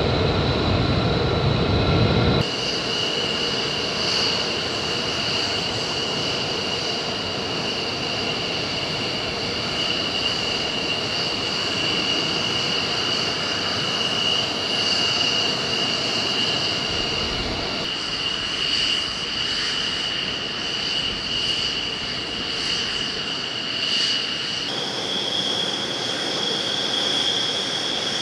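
F-16 fighter jets taxiing, their jet engines at idle with a steady high-pitched whine over a rushing noise. The sound changes abruptly a couple of seconds in and again about 18 and 25 seconds in, and at the last change the whine steps slightly higher.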